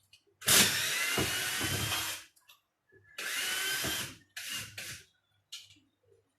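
Power drill boring into a wall in bursts: one long run of nearly two seconds, then a run of about a second and two short ones, its motor whine rising in pitch as it speeds up.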